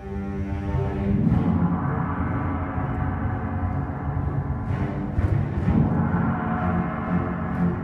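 Live orchestra playing a dense, low contemporary passage that swells louder about a second in, with a few sharp accents near the middle.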